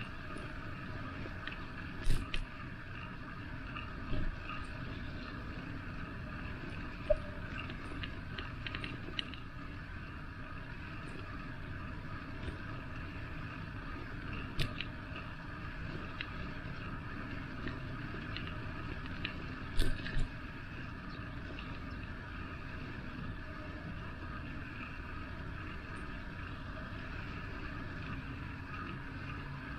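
Steady rolling and road noise of a bicycle ride, with a few short sharp knocks; the loudest come about two seconds in and about twenty seconds in.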